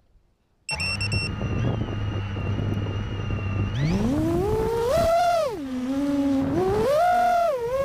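Brushless motors of a Geprc MOZ7 7-inch FPV quadcopter start and hold a steady idle whine, with a few short high beeps as they start. About four seconds in, the pitch climbs steeply as it throttles up and takes off, then rises and falls with the throttle in flight.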